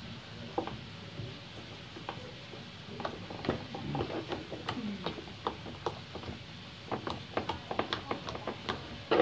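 Sticky blue slime being poked and pressed with fingertips, giving small sticky clicks and crackles that come thicker and faster in the second half. It does not pop, only these little clicks.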